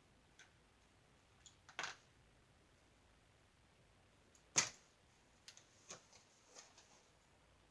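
A few light clicks and taps from handling brushes and paint. There is a short scuffle about two seconds in, a single sharper click near the middle, then several small ticks over a quiet room.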